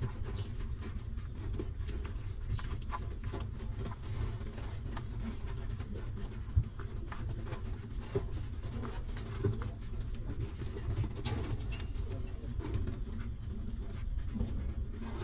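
Newborn puppies nursing on their mother: soft scattered grunts and murmurs with small suckling clicks, over a steady low rumble. One sharp click about six and a half seconds in stands out above the rest.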